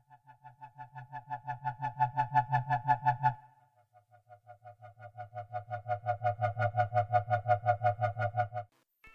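Elektron Analog Four/Analog Keys analog synthesizer playing a preset: two long bass-heavy notes, each swelling in and pulsing rapidly about eight times a second. The first stops about three seconds in, and the second, slightly lower, cuts off near the end.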